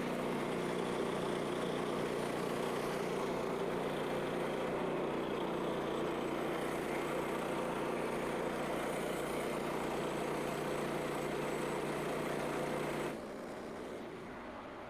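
Portable bandsaw mill's engine running steadily with its band blade driving. It drops noticeably quieter about thirteen seconds in.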